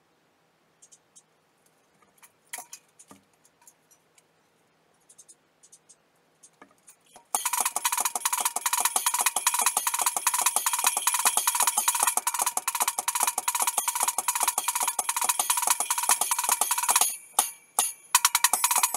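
A few light taps and clicks on the drum kit, then about seven seconds in a fast, steady stream of bright metallic strokes on the kit's cymbals or metal percussion, breaking up into a few separate hits near the end.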